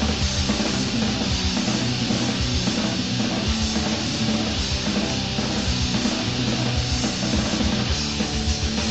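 Crust punk band recording: heavily distorted guitars and bass over fast, hard-hit drums, dense and unbroken, with the dull top end of a tape transfer.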